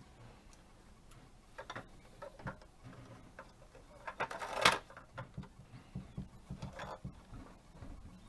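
Handling noise from a red plastic toy fire engine being touched and pressed: scattered light clicks and taps, with one louder brief rattle about four and a half seconds in.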